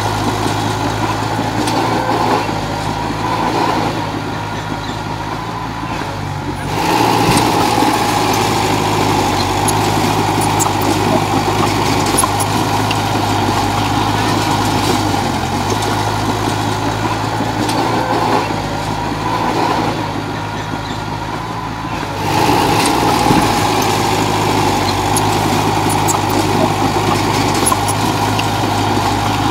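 Komatsu D31 bulldozer's diesel engine running steadily as it pushes soil. Twice it eases off for a few seconds and then comes back up to a higher, louder pitch. Faint ticks sound over it.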